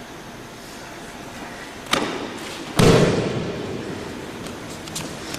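A training partner's body hitting the judo-style mat as he is thrown and breaks his fall: a sharp slap about two seconds in, then a heavy thud less than a second later that rings on in the large hall.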